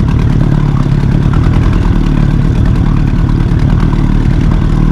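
Boat's outboard motor running steadily at low trolling speed: a constant low drone with no change in pitch.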